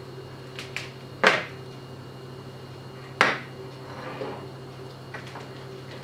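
Two sharp clicks about two seconds apart, with a few lighter ticks, as loose wires and a plastic module box are handled on a table during a bench test of LED daytime running lights.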